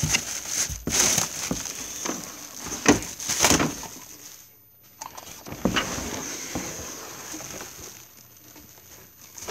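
Cardboard packaging being handled as the vacuum's main body is taken out of its box: irregular scraping, rustling and knocks, with a few sharper ones in the first four seconds and quieter handling after.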